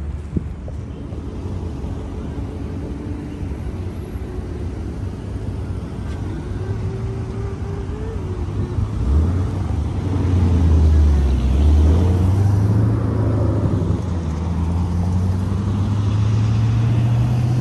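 Street traffic, with motor vehicle engines running close by. About halfway through, an engine grows louder and its pitch rises slowly, as a vehicle pulls away.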